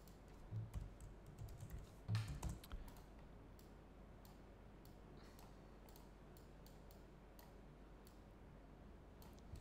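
Faint computer keyboard typing and mouse clicks: a short run of keystrokes in the first three seconds, then single clicks spaced out over the rest.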